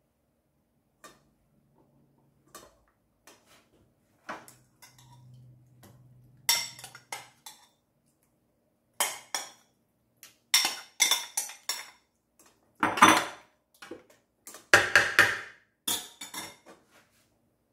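A spoon clinking, tapping and scraping against a metal loaf pan and a sauce bowl as tomato sauce is spooned in and spread. There are a few faint taps at first, then louder, bunched clatter from about six seconds in.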